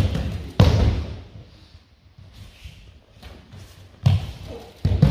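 Bodies thudding onto judo mats as a partner is thrown and takes breakfalls. There are two heavy thuds near the start, the second the loudest, then two more thuds about four seconds in.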